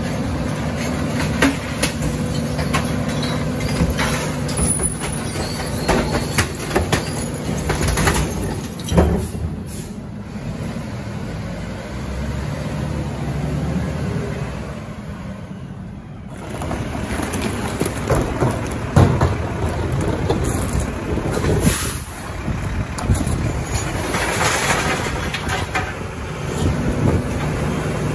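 Mack LR rear-loader garbage truck at work: the diesel engine runs steadily under frequent clanks and knocks of collection work. The sound eases off for a few seconds in the middle, then picks up again.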